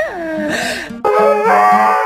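Background music with held notes and a steady low beat. In the first second there is one falling vocal cry, cut off sharply about a second in, after which the music carries on alone.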